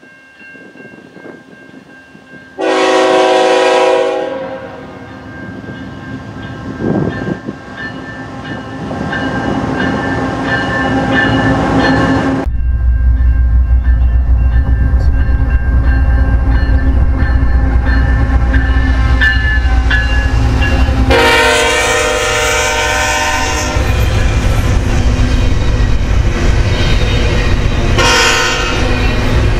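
A Canadian National freight locomotive's air horn sounds a short chord blast about three seconds in, and the approaching diesel and train grow steadily louder. Then a double-stack intermodal train rolls past with a heavy low rumble, and the horn sounds again, a longer blast around two-thirds of the way through and another near the end.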